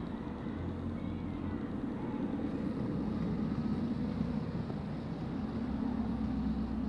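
Steady low rumble of an engine running, with no distinct knocks or other events.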